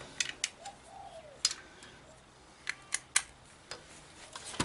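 A bike lock being handled and snapped shut: a string of sharp separate metal clicks, about seven over the few seconds, as the lock is closed and locked with its key.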